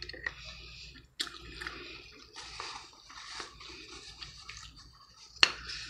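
A person chewing a mouthful of king crab and lamb shank, close to the microphone: soft, wet, uneven mouth sounds. There is a single sharp click about five and a half seconds in.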